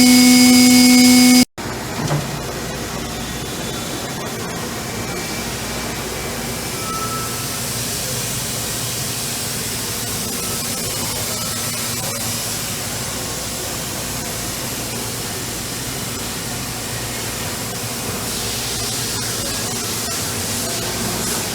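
Kitamura Mycenter-1XiF vertical machining center at work: a loud steady spindle whine with strong overtones cuts off about a second and a half in. It gives way to a steady hiss of coolant spraying over the machine's running noise.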